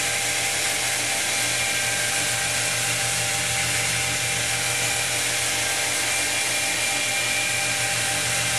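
Electric handheld wet stone polisher running at steady speed, its diamond pad grinding against a wet stone wall. A steady motor whine with several held tones over a grinding hiss, unchanging throughout.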